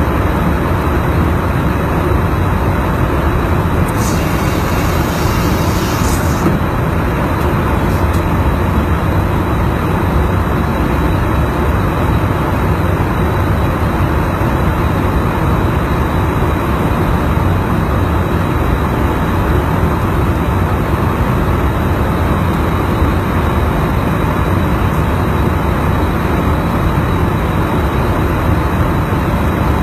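Steady engine and airflow noise of an aircraft in flight, a loud, even rumble. About four seconds in, a hiss rises in the highs for about two seconds.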